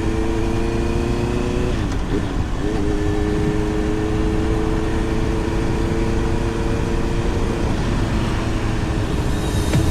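Wind rushing over a helmet-mounted microphone while riding a motorcycle, under the engine's steady hum. The engine note dips briefly about two seconds in and then returns.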